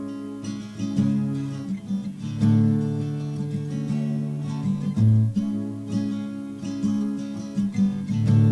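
Acoustic guitar strumming chords, an instrumental passage between sung lines.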